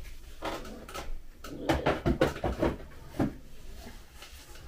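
Household handling noise: a small cardboard spice box set back on a kitchen shelf, with a run of short knocks and clatters against the shelf from about one and a half to three seconds in.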